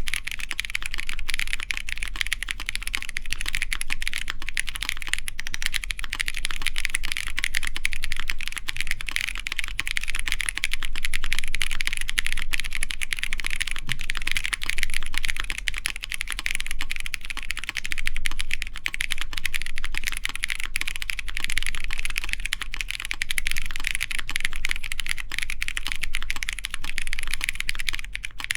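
Continuous fast typing on a Matrix Lab ME SE mechanical keyboard with stock Kailh Polia tactile switches, an aluminum plate and GMK keycaps: a dense, steady run of keystroke clacks.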